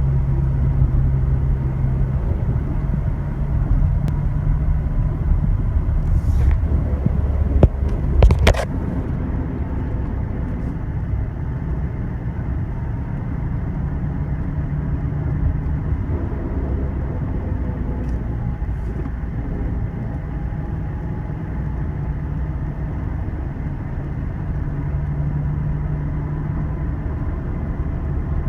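A lifted 2014 Chevy Silverado 1500 4x4 driving and slowing down, with a steady low rumble of engine and road noise, the noise the owner links to its RCX 5-inch lift kit when decelerating. A few sharp knocks come about six to eight seconds in, the loudest near eight seconds.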